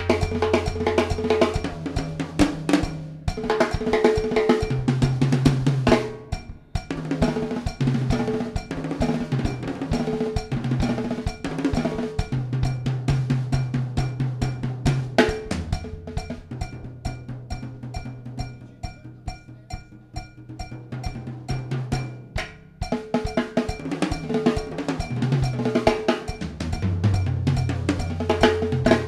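Drum kit played in a busy groove of snare, bass drum and rim strokes with cowbell, thinning out for a few seconds in the middle before building back up. A sustained low bass line changes note every second or two underneath.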